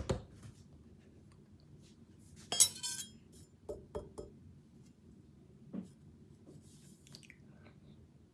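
Kitchenware clinking: one sharp clink with a brief ringing tone about two and a half seconds in, followed by a few softer knocks and taps.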